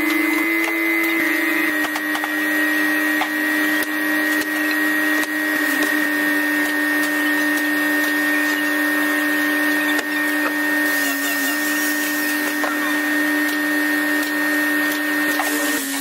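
Electric wood router motor running with a steady high whine, its pitch shifting slightly a few times.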